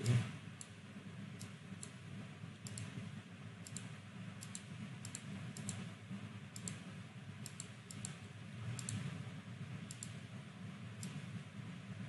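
Computer mouse clicking: a dozen or more short, sharp clicks at irregular spacing over a steady low hum.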